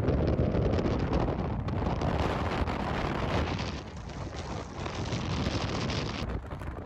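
Gusty wind buffeting the microphone: a rumbling noise that rises and falls.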